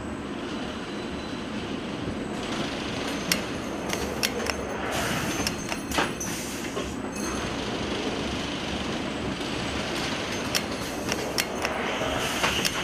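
Automatic tight-wrap bundling machine running with its flighted infeed conveyor: a steady mechanical rumble, with sharp clicks and clacks from the moving parts at irregular intervals, several in quick succession near the end.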